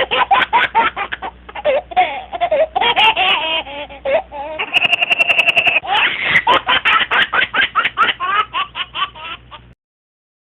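High-pitched giggling laughter in rapid repeated bursts, cutting off sharply near the end.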